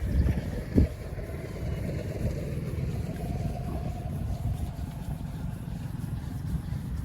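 A motor vehicle engine running with a low rumble, with one sharp knock about a second in.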